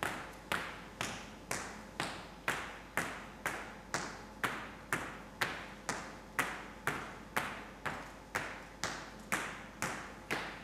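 Hard-soled shoes striking a stage floor in slow, even footsteps, about two a second, each step a sharp click with a short echo after it.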